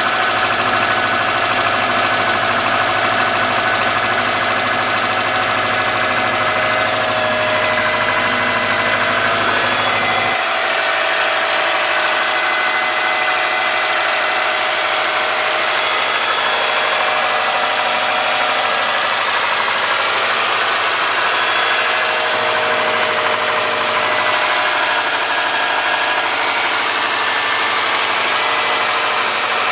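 2003 Subaru Forester's flat-four engine idling after a cold start, with a ticking from the driver side of the engine: the sign of excessive clearance on the exhaust valve of the driver-side front cylinder. The deep low rumble drops away about ten seconds in.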